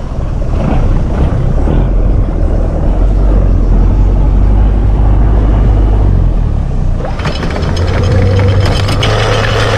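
Motorboat engine running, with wind rumbling on the microphone. About seven seconds in the sound changes to a steadier pitched hum with a fast, regular ticking.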